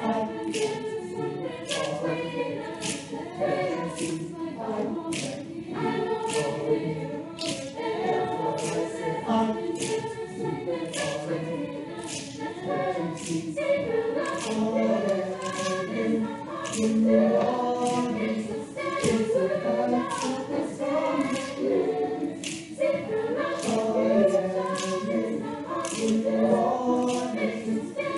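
Chamber choir singing in close harmony, with a steady beat of sharp clicks about one and a half times a second running under the voices.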